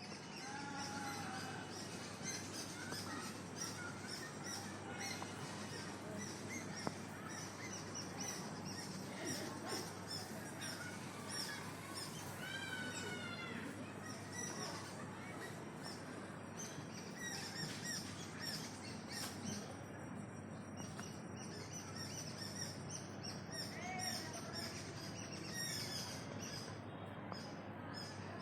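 Several wild birds chirping and calling at once over a steady outdoor background hiss. About twelve seconds in, one bird sings a quick run of repeated notes.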